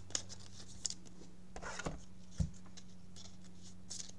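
Trading cards being handled and slipped in clear plastic sleeves: light rustling and small clicks, with a dull thump about two and a half seconds in, over a faint steady hum.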